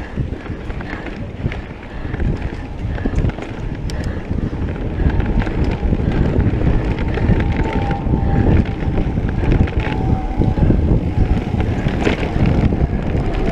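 Wind buffeting the microphone as a mountain bike rides fast over dirt singletrack, mixed with clicks and rattles of the bike over the bumpy trail; it gets louder about two seconds in.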